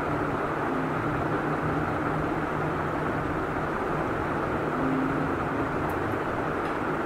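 Steady background rumble and hiss with a faint low hum; no distinct events.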